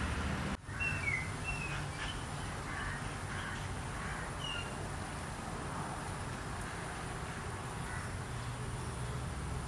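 Outdoor ambience: a steady low rumble with a few short bird calls in the first half. The sound drops out for a moment about half a second in.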